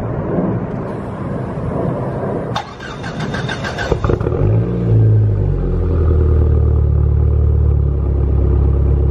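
Dodge SRT-4's turbocharged 2.4-litre four-cylinder heard at the tailpipe: the starter cranks for about a second and a half, the engine catches and flares up in revs, then settles into a steady idle.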